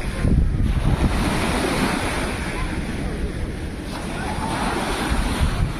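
Sea of Azov waves washing on the shore, a steady surf noise, with wind buffeting the microphone in an uneven low rumble.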